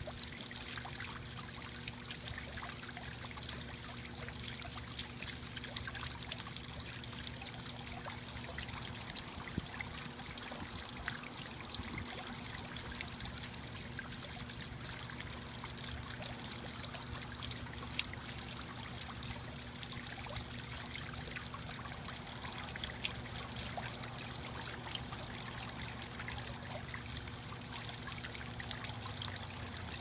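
Cast stone tiered garden fountain running: water pouring over the rim of the top bowl and splashing and trickling steadily into the pool below, with a faint low hum beneath.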